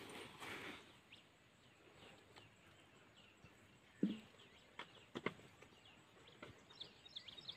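Quiet open-air ambience with faint bird chirps, a quick flurry of them near the end. A few soft knocks and clicks come around the middle.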